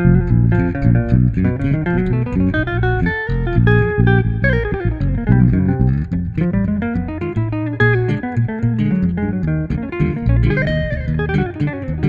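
Hollow-body archtop electric guitar and multi-string electric bass playing an instrumental duet: a dense run of plucked notes, with several long notes sliding up and down in pitch.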